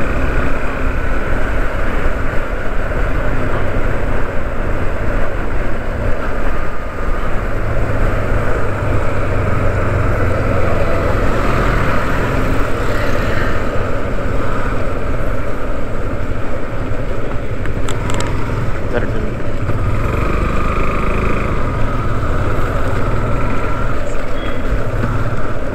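Motorcycle being ridden at steady road speed: the engine runs under a continuous rush of wind on the microphone.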